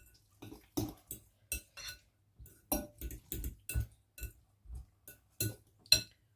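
A metal utensil clinking again and again against a bowl, about three strikes a second at an uneven pace, as the salted omelette mixture is stirred.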